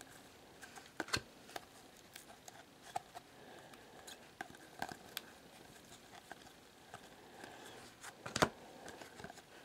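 Faint clicks and light rustling of glossy Panini Prizm Racing trading cards being flipped through by hand, one card slid from the front to the back of the stack at a time. A sharper snap comes near the end.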